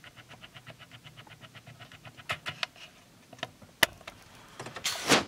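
A hand handling the plastic trim panel around a car stereo: scattered sharp clicks and taps, the loudest about four seconds in, and a short scuffing rustle near the end. A faint rapid ticking, about five a second, runs through the first three seconds.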